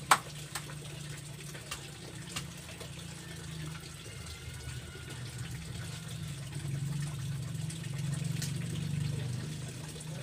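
A knife knocking on a chopping board a few times as fish is cut up: one loud knock at the start, then fainter ones over the next couple of seconds and one more near the end. A steady low hum runs underneath and grows louder in the second half.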